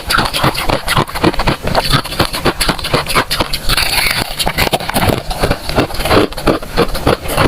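Freezer frost being crunched: a dense run of irregular crisp crunches.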